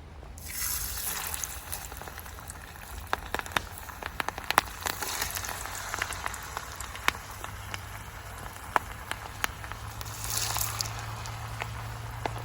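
Beef steak sizzling on a hot iron griddle, a steady hiss with many sharp pops and crackles of spitting fat. The sizzle swells briefly about a second in and again near the end.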